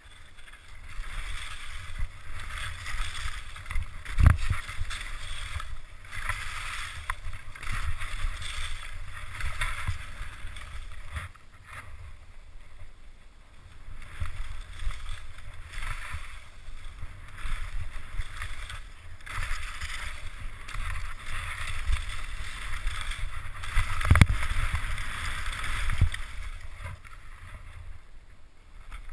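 Skis scraping and hissing across firm, chopped-up snow through a series of turns, the sound swelling and fading with each turn, with wind rumbling on the microphone. Two sharp thumps, one about four seconds in and one about five seconds before the end.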